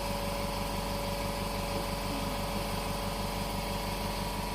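Steady machine hum with a fast, even pulse underneath, unchanging throughout.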